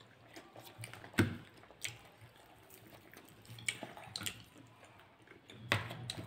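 Quiet eating sounds: chewing and a few light clicks of fingers and food against a plate and bowl, the sharpest about a second in, over a low steady hum.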